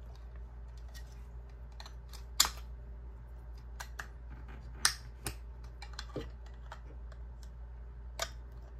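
Irregular small clicks and snaps of 3D-printed plastic support pieces being pried and broken off a goggle frame with a hobby knife, with two louder snaps about two and a half and five seconds in, over a steady low hum.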